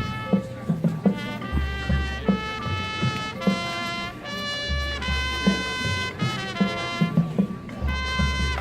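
High school marching band playing: brass holding loud chords that change every second or so, over low bass notes and drum hits.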